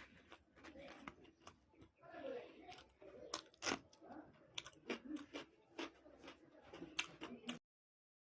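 Close-up eating sounds: puri being torn and chewed with chana dal sabji, with irregular sharp mouth clicks and smacks. The sound cuts off suddenly near the end.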